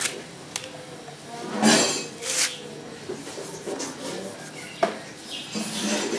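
Cloth rubbing a rusty motorcycle exhaust header pipe to scrub the rust off, in a few rubbing strokes, with a few light clicks.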